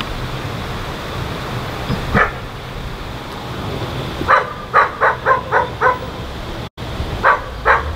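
A dog barking: one bark a couple of seconds in, then a quick run of about six barks, and two more near the end, over a steady low rumble of farm machinery.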